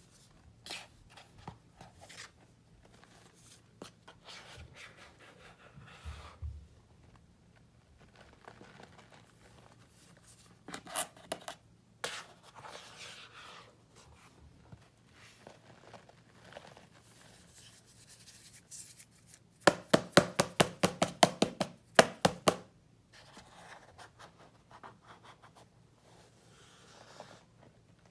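Hands squeezing, crumbling and letting fall packed scouring powder (Ajax and Comet cleanser) in a plastic tub: soft crunches and rustles. About two-thirds of the way through comes a quick run of sharp strokes, about seven a second, for nearly three seconds.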